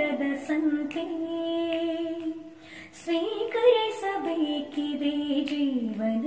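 A woman singing a slow Kannada song, holding long notes that slide between pitches, with a short pause for breath about two and a half seconds in.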